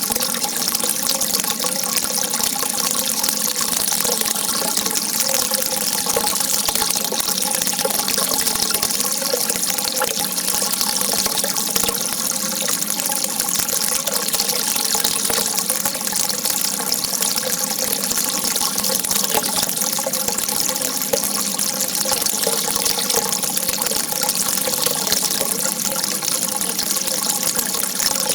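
Water rushing in a steady, unbroken stream, with faint wavering gurgling tones under the hiss.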